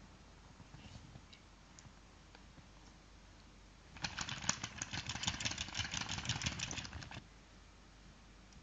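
An interactive baby doll's electronic drinking sound, set off by the toy bottle at its mouth: about three seconds of rapid crackly clicking that starts about four seconds in. Faint handling clicks come before it.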